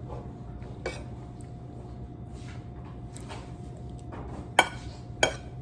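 Cutlery clinking and scraping on a ceramic plate while eating: a light tap about a second in, then two sharp clinks near the end, over a low steady hum.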